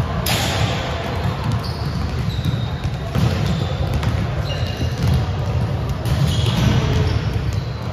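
Volleyballs being hit and bouncing on a gym floor, echoing in a large hall, with a sharp hit just after the start and scattered smaller thuds. Short high squeaks come and go several times, and a steady low rumble runs underneath.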